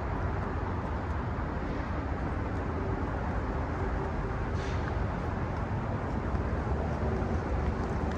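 Steady low rumbling background noise with a faint hum: an urban waterfront's engine and traffic din.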